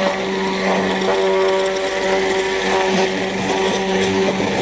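Electric immersion blender running steadily in a glass jar, its motor a constant hum, blending broken mayonnaise into a little water to re-emulsify it.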